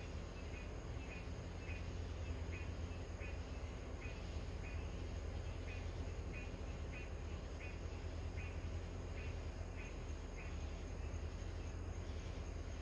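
An animal repeating a short, high chirp over and over, roughly one or two a second, stopping about ten seconds in, over a steady low rumble. No thunder.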